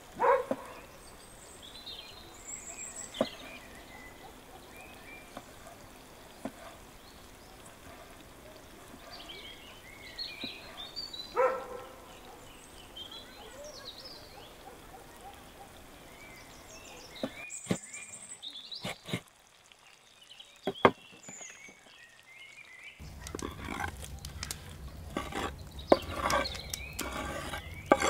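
Quiet outdoor background with an animal's short calls twice, near the start and about eleven seconds later, and thin high chirps between. After about seventeen seconds the background drops away to a few sharp clicks. Then a low steady hum sets in under a run of clicks and knocks.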